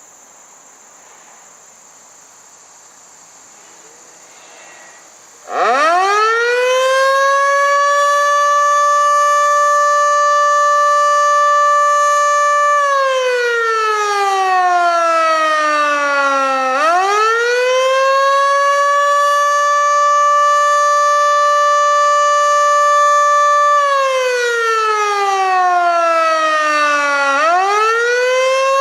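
Federal Sign & Signal Model 2 electromechanical warning siren starting up about five seconds in, its pitch climbing fast to a steady loud wail. On the attack signal it holds that pitch for several seconds, then winds down and climbs back up, twice.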